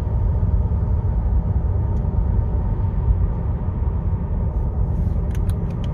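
Steady low rumble of road and engine noise inside the cabin of a 2011 Lexus GS 350 cruising at about 40 mph, its 3.5-litre V6 still cold from a cold start. A few light clicks come near the end.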